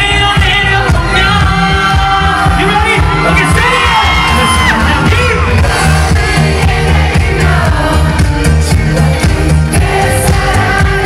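A male singer's voice singing a pop ballad live through a PA, over loud amplified backing music with a heavy bass, the melody gliding and bending in long sung lines.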